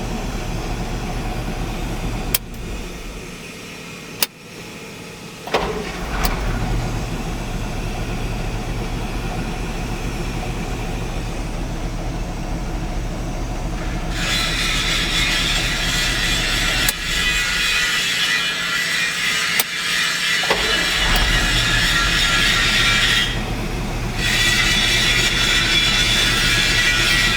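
ZIL truck engine running on a freshly installed and tuned LPG gas system, a steady low idle that the owner says sounds as it did when the truck was new. The low engine note drops away twice for a few seconds, with a few sharp clicks. From about halfway a loud hiss joins it.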